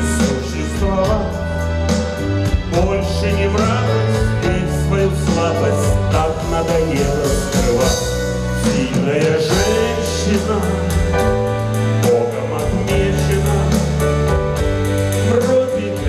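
A man singing a slow song live, accompanied by his own acoustic guitar and a bass guitar holding low notes that change every couple of seconds.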